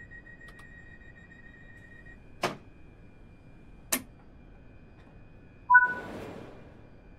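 Class 314 electric train sounds: a steady low hum with a high whine, two sharp clicks, then a loud clunk carrying a brief two-note tone that fades over about a second and a half.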